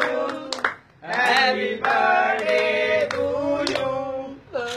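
Several voices singing together, with a few sharp claps. The singing breaks off briefly about a second in and again near the end.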